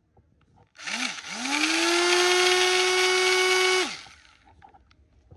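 Makita 6305A 850 W corded electric drill blipped on briefly, then run up with a rising whine to full speed and held steady for about two and a half seconds. Its electric brake stops it sharply. The seller says its bearings are a little noisy.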